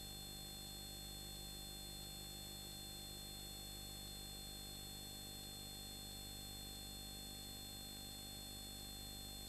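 Faint steady electrical hum and hiss with a few thin steady high tones, the noise floor of the recording with no programme sound.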